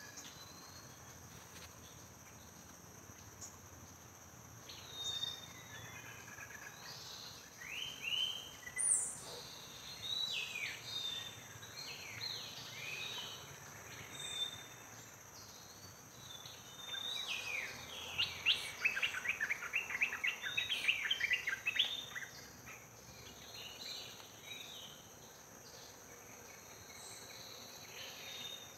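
Birds chirping and calling over a steady, high insect drone like crickets. A dense run of rapid chirps comes about two-thirds of the way through.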